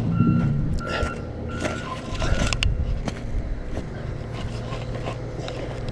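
Heavy machine's engine running steadily while its reversing alarm beeps about three times in the first second and a half. A few metal clanks and a low rumble follow.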